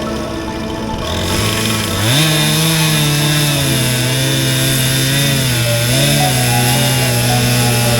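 Two-stroke chainsaw running at high speed, its pitch climbing about two seconds in and then holding steady, with brief small dips as it takes load.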